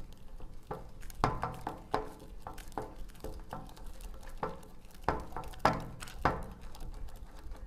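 A wire whisk beating flour and water into thick, still-lumpy pancake batter in a ceramic bowl, with irregular knocks and clinks of the whisk against the bowl, about one or two a second.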